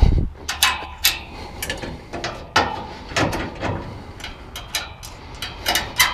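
Aluminium ramp tailgate of a utility trailer being folded up and pinned: a string of sharp metallic clanks and rattles as the gate swings up and the locking pin and clip are worked into place.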